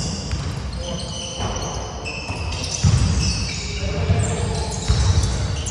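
Basketball play on a hardwood gym floor: short high sneaker squeaks and thuds of the ball and feet, with louder thumps about three and five seconds in.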